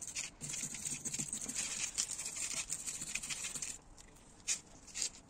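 Wire brush scrubbing weld slag off a welded steel one-way clutch, fast scratchy back-and-forth strokes that stop just under four seconds in. A couple of light taps follow.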